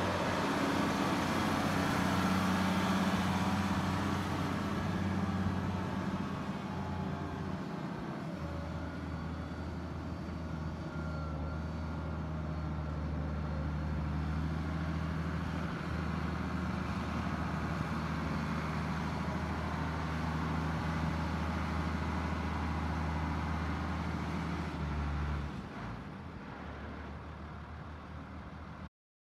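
Case International tractor's diesel engine running steadily as the tractor drives about, a low even drone that is loudest in the first few seconds. About twenty-five seconds in, the engine sound drops away sharply.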